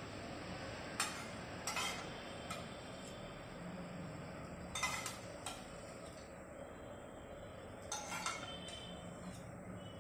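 Metal spoon clinking against a small metal pot and a wok as oil is ladled into the wok: about seven sharp clinks, some in quick pairs, over a steady faint hiss.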